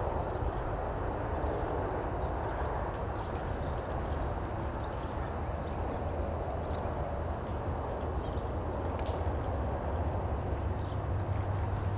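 A horse walking on soft arena dirt, its hoofbeats muffled and faint under a steady low rumble and hiss, with scattered faint high ticks.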